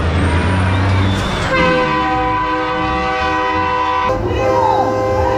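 Diesel semi-truck engines running loud at launch, then a multi-tone, train-style air horn sounds one steady chord for about two and a half seconds and cuts off abruptly.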